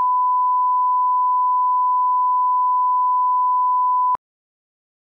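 Steady single-pitch line-up test tone that accompanies SMPTE colour bars. It cuts off suddenly about four seconds in.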